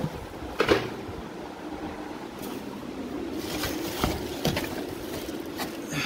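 Plastic wrapping and cardboard packaging being handled and rustled while vacuum-cleaner parts are taken out of their box. There is a sharp crinkle just under a second in and scattered softer rustles after it, over the steady hum of a running fan.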